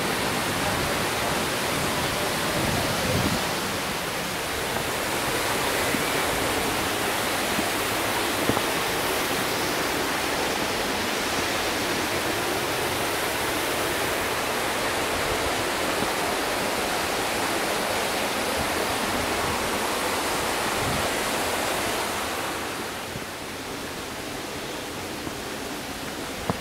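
Steady rushing of the Turner Falls waterfall, an even wash of falling-water noise that becomes somewhat quieter near the end.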